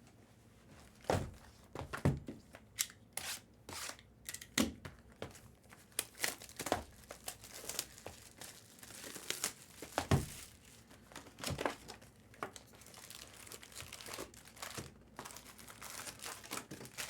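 Trading-card pack wrappers being torn open and crinkled, with irregular crackles and short rips as the packs are handled.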